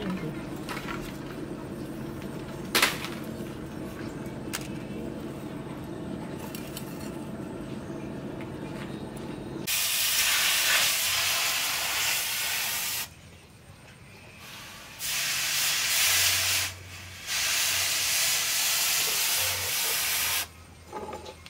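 A steady low hum while the cleaver blade heats in a charcoal forge, with a single knock about three seconds in. Then the hot steel blade is plunged into a water trough to quench it, hissing loudly in three bursts of a few seconds each as it is dipped, lifted and dipped again.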